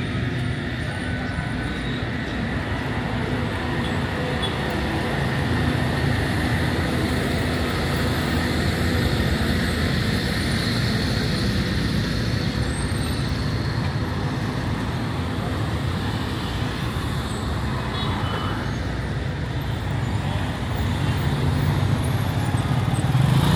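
Steady road traffic noise, with the low rumble growing louder near the end.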